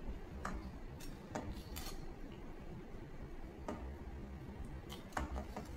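Metal slotted spoon stirring a thick vegetable curry in a stainless steel pan, giving a handful of light, irregular clinks of steel on steel.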